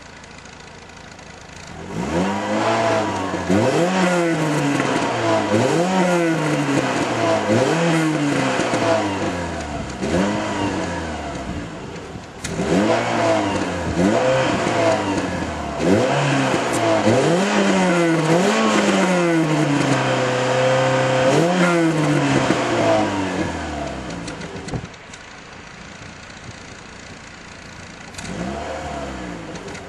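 Renault Clio Sport's 2.0-litre four-cylinder engine, heard at the exhaust with the car standing still: idling, then revved in a series of quick blips about every two seconds, pitch rising and falling with each. About twenty seconds in it is held at a steady higher rev, then drops back to idle, with one more short blip near the end.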